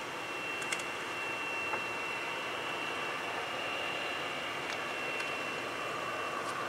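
Twin Pratt & Whitney J52 turbojets of an EA-6B Prowler idling on the ground: a steady rushing noise with a high, steady whine over it.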